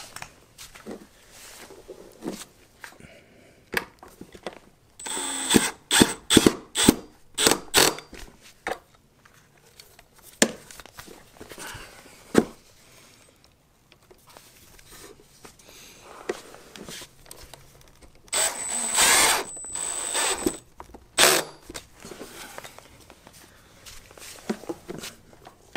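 Cordless drill-driver driving the screws of a rowing machine's plastic foot plate cover, in a quick series of short trigger bursts and then one longer run of about two seconds, with a few knocks of handling between.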